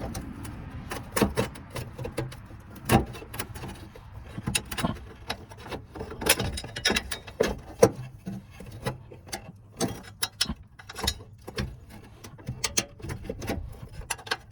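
Irregular metallic clicks, taps and clinks as bolts and a car fender bracket are handled and threaded in by hand.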